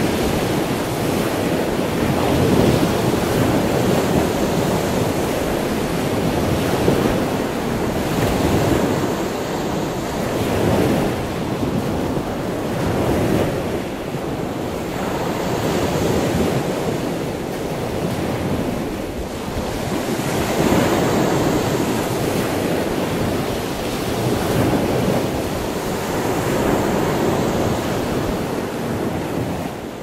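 Sea waves breaking on a beach and washing up the shore, the surf swelling and easing every few seconds.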